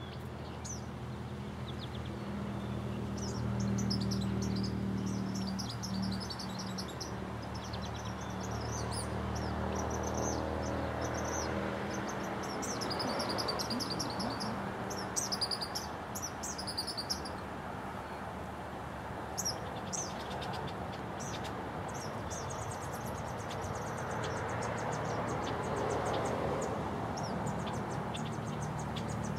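Outdoor ambience of small birds chirping and trilling, with a fast, even high trill in the last third. A low, steady buzz sits underneath for the first twelve seconds or so, then fades.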